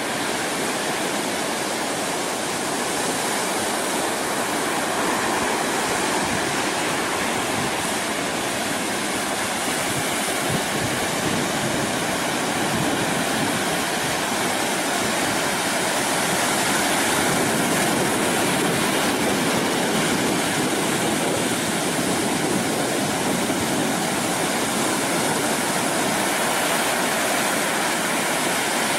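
Ocean surf rushing steadily, a continuous wash with no separate wave breaks standing out.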